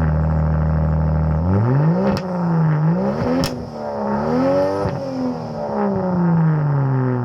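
Volvo S60 T6 engine idling steadily, then revved in three blips, the pitch rising and falling each time, before sinking slowly back toward idle. Two sharp cracks come near the tops of the first two revs.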